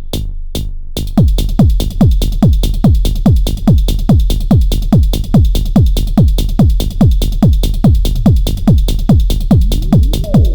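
Techno pattern playing on an Elektron Model:Cycles groovebox. After a brief drop with only high ticks, a driving beat of low hits with quickly falling pitch comes in about a second in and repeats evenly. A gliding synth chord enters near the end.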